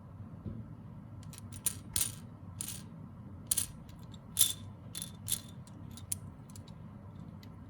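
Small hard plastic and metal pieces being handled, giving a dozen or so irregular light clicks and taps, the loudest about halfway through, over a steady low hum.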